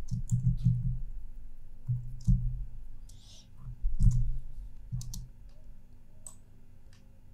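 Irregular clicks and taps from a computer mouse and keyboard, with dull low knocks under some of them. The clicks come several to the second at first and grow sparser later.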